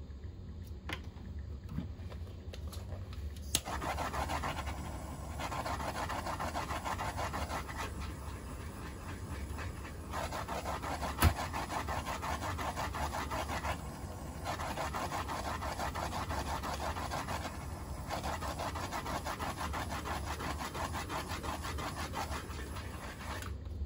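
Small handheld torch hissing as its flame is played over a freshly epoxied tumbler, in about five stretches of a few seconds with short breaks between, over a low steady hum.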